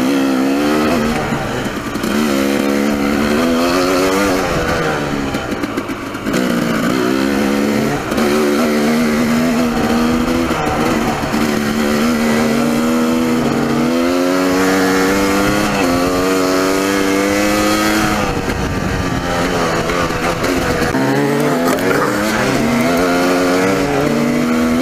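Dirt bike engine heard close up from the rider's own bike, pulling hard through the gears: its pitch climbs, drops back at each gear change and climbs again, over and over.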